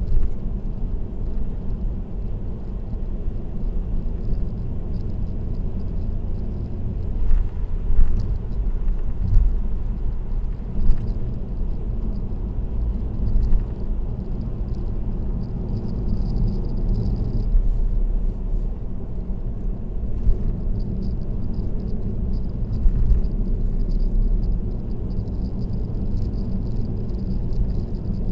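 Steady low road and tyre rumble of a car cruising on an expressway, heard from inside the car, with a few brief knocks now and then.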